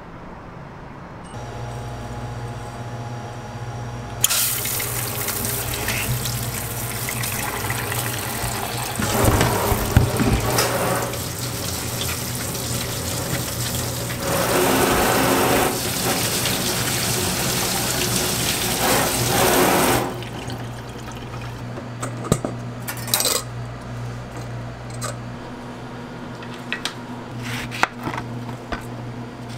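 Tap water running into a stainless-steel sink and over an orange being rubbed clean in gloved hands; the water cuts off abruptly about twenty seconds in. Then a knife slicing the orange on a cutting board, with light clicks and taps.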